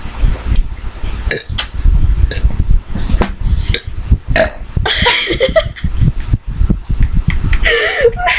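Girls burping after drinking carbonated soda: a long burp about four and a half seconds in and a shorter one near the end, over a constant low rumble.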